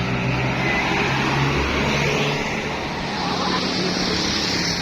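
Heavy road vehicle's engine running close by as a steady low hum, over roadside traffic noise. A higher hiss joins about three seconds in.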